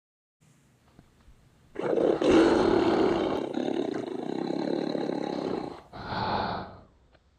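Dinosaur roar sound effect: a faint low growl, then one long loud roar of about four seconds, followed by a shorter second call.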